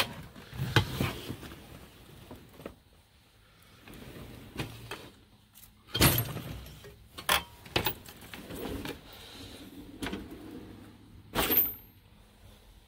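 Tools being handled: a string of sharp clatters and knocks of hard objects, the loudest about six seconds in and again near the end, with quieter rustling and handling between.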